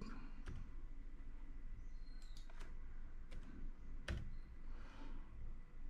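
Scattered faint clicks of computer keyboard keys and a mouse as numbers are typed into a field, about half a dozen presses with the loudest about four seconds in, over a low steady hum.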